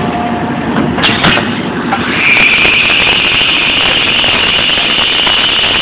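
A 5 L double-head extrusion blow molding machine running, with a steady mechanical din. Two sharp clacks come about a second in, then from about two seconds in a steady high-pitched hiss of air that keeps going.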